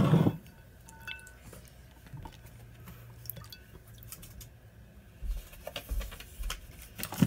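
A hand squishing and stirring white glue slime in a plastic tub as borax activator is mixed in: soft wet squelches and sticky clicks, with a few dull low thumps toward the end.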